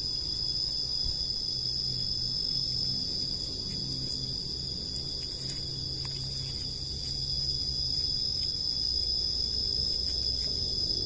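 Steady high-pitched drone of an insect chorus, unbroken throughout, with faint rustles and small clicks of hands handling the netting of a collapsible umbrella fish trap.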